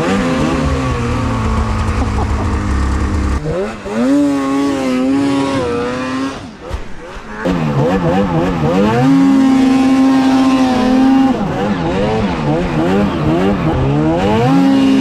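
Snowmobile engines revving hard, the pitch climbing and falling again and again as the throttle is opened and backed off, sometimes held steady at high revs. The sound breaks off and changes abruptly twice, about three and a half and seven and a half seconds in.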